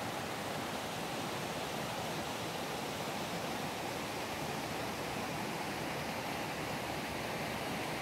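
Steady rushing of water from a nearby stream and waterfall, an even, unbroken hiss.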